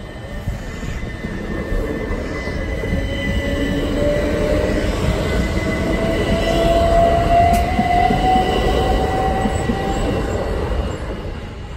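Southern Class 377 Electrostar electric train passing close by as it pulls away from the station, with heavy wheel and rail rumble. Its electric drive gives a whine that rises slowly in pitch as the train gathers speed, and a steady high tone sounds above it. The sound is loudest a little past the middle and fades as the train draws away.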